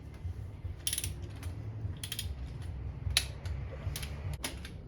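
Pittsburgh click-type torque wrench ratcheting, with sharp clicks about once a second, as the RB20's cylinder head bolts are tightened to 20 foot-pounds, the first step of the torque sequence.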